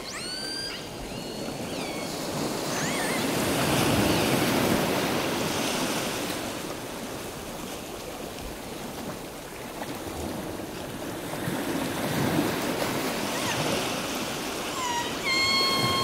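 Sea waves breaking on a beach, swelling and easing twice, with gulls calling at the start and again about three seconds in. About a second before the end a steady high tone with overtones sets in.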